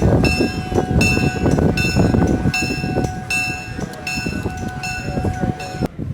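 A train running close by with a loud rumble, a bell ringing about once every three-quarters of a second over it; the sound cuts off suddenly near the end.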